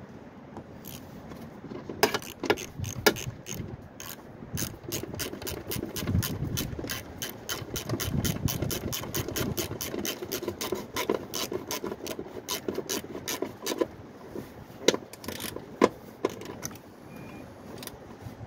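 Hand ratchet wrench with a socket extension clicking as a bolt is turned, a long steady run of about four clicks a second. A few louder knocks of metal on metal come near the start and again near the end.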